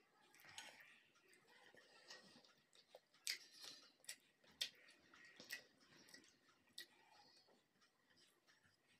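Faint eating sounds: chewing and fingers mixing rice and fish curry on a ceramic plate, with about five sharp little clicks a few seconds in.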